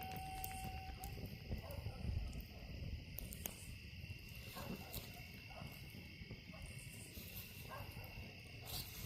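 Insects trilling steadily in a continuous high-pitched drone, with a few faint clicks.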